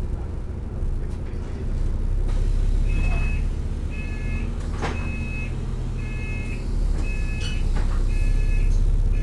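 Bus engine running with a steady low drone heard from inside the cabin, swelling twice. From about three seconds in an electronic beeper sounds seven times, about one beep a second, with a sharp click near the middle.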